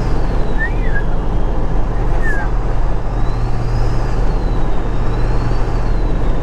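Ford 7.3L Power Stroke V8 turbo-diesel running under way, with a steady low drone. Its turbo whistle sounds as a high thin tone that rises and falls several times.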